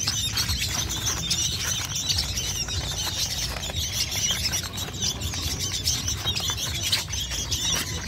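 A crowd of caged young songbirds, sooty-headed bulbul chicks among them, calling continuously in a dense, high-pitched chirping chatter, over a low background rumble.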